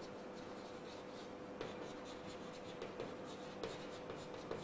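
Chalk writing on a blackboard: faint scratching with a few light taps as the letters are formed, over a faint steady hum.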